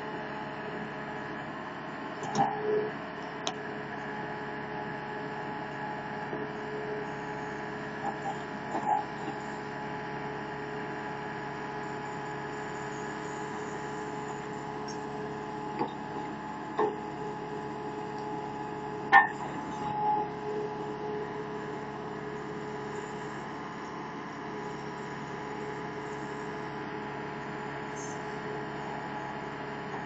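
Engine of a 27 hp compact crawler skid steer loader running steadily with a constant hum, with a few short clanks and knocks as its backhoe attachment digs a trench through rocky soil.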